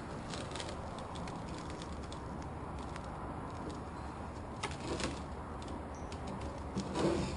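Light clicks and faint scraping from a pipe knife scoring the urethane bead that holds a truck's back glass, with two sharper clicks about halfway through and a few more near the end, over a steady low hum.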